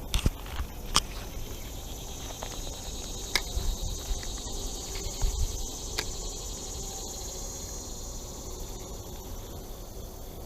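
Steady high-pitched chorus of insects chirring, with a few sharp clicks in the first several seconds.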